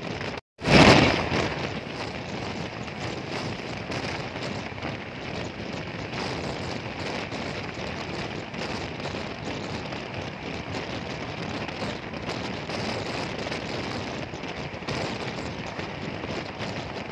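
Open freight wagons of a long goods train rolling past close by: a steady rumbling clatter of steel wheels on the rails. About half a second in there is a brief dropout, then a sudden loud burst that fades over about a second.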